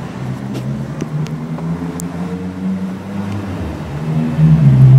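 A low motor hum that shifts slightly in pitch and grows louder near the end, with a few faint light clicks.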